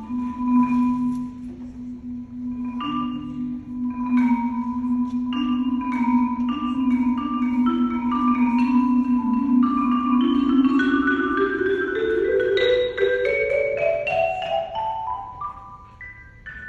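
Marimba struck with mallets over a string orchestra's held low note, then a rising run of notes climbing steadily toward the end.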